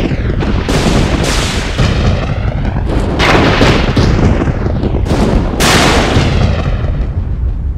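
Thunder: a series of loud cracks, several in the first few seconds and a couple more later, each rolling off over a continuous low rumble.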